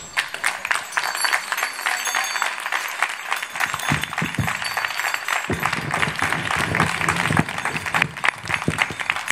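A crowd of adults and children applauding, many hands clapping at once.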